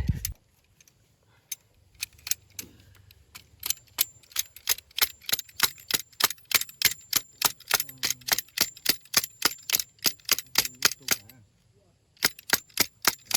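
Tent stakes being hammered into the ground: a fast run of sharp strikes, about four a second, breaking off briefly near the end before a last short run.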